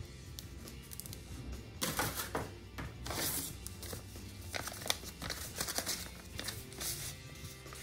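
Background music, with paper and plastic packaging rustling and crinkling over it in short bursts, loudest about two and three seconds in, as a plastic blister pack is handled and papers are pulled out of an envelope.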